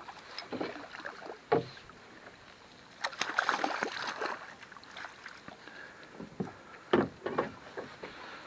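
Sounds aboard a small fishing boat: water slapping against the hull, a splashy rush a few seconds in, and a few sharp knocks on the boat.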